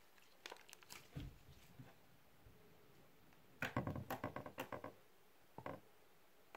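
Green slime being squeezed and poked by hand, giving short clicking pops in small groups, with a quick run of pops about three and a half seconds in.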